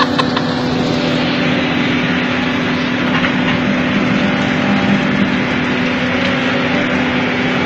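Excavator engine running with a steady hum while the machine works at the top of an earth cut.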